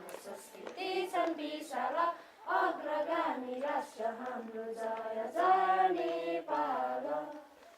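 A group of high voices singing a melody together, like a choir.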